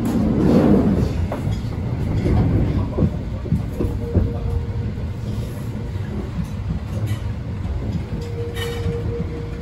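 Running noise of the Saphir Odoriko, a JR East E261-series electric train, heard inside the car: a steady low rumble of wheels on rail with scattered clicks and a faint hum that comes and goes.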